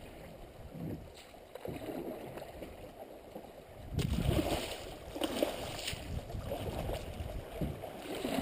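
Shallow river water rippling and rushing around a moving canoe, with irregular splashes from the hull and paddle. The water gets louder about four seconds in as the canoe enters a choppy riffle.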